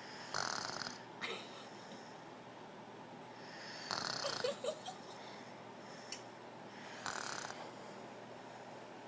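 A sleeping baby snoring softly: three raspy snores, about three seconds apart.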